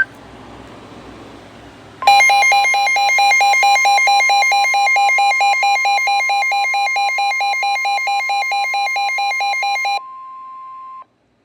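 Weather radio emergency alert tone: after about two seconds of faint radio hiss, a loud, steady, single-pitched warning tone comes on, with a fast warbling alarm of about five cycles a second sounding over it. About eight seconds later the warble stops, and the steady tone carries on more quietly for about another second before cutting off.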